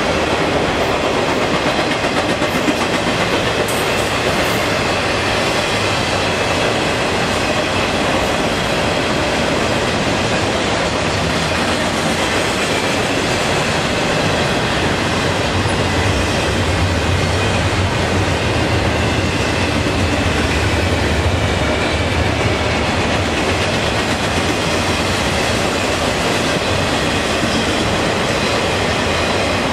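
Intermodal freight train cars rolling past: a loud, steady rumble of steel wheels on the rails, with a deeper low rumble swelling for several seconds about halfway through.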